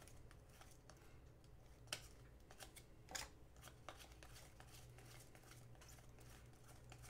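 Faint flicks and slides of a stack of hockey trading cards being thumbed through by hand, one card at a time, with a few sharper clicks, over a low steady hum.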